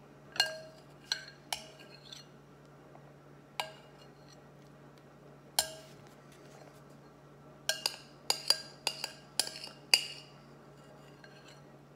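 A spoon clinking against a bowl while eating: scattered single clinks, then a quick run of clinks around eight to ten seconds in.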